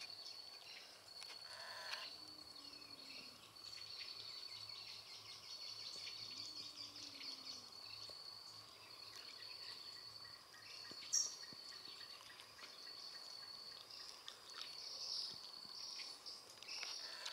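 Steady, high-pitched insect trill, finely pulsing, with a few faint bird calls and one brief, sharper chirp about eleven seconds in.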